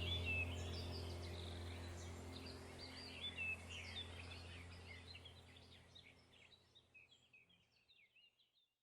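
Small birds chirping and calling in quick short notes over a low steady hum, the whole fading out gradually to silence near the end.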